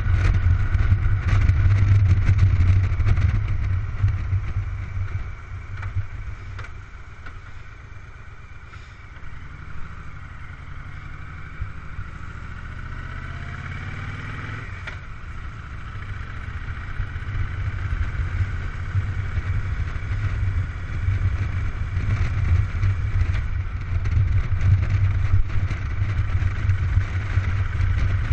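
Cruiser-style motorcycle engine running under way with a steady low rumble. It eases off about five seconds in, runs quieter for several seconds while the revs climb, then pulls louder again from about sixteen seconds on.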